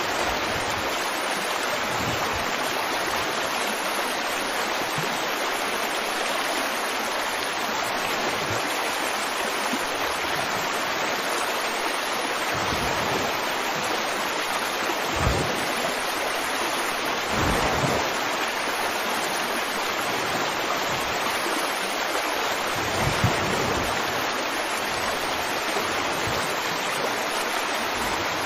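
Steady rushing water, an even wash of surf-like noise, with a few soft low thuds about halfway and near the end.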